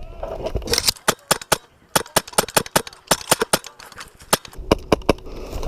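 Airsoft gun firing a rapid, irregular string of single shots, about twenty sharp snapping clicks over four seconds, emptying the magazine before a reload.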